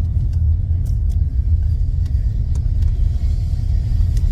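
Honda Element driving, heard from inside the cabin: a steady low rumble of road and engine noise, with a few faint clicks.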